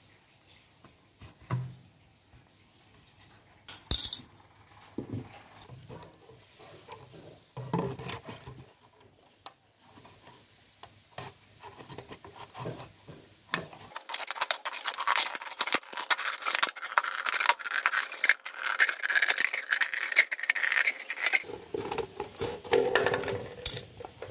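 Plastic drink bottle being handled and cut with a small blade: scattered light taps and clicks at first, then about halfway through a dense crackling, scraping run of several seconds as the blade cuts around the bottle.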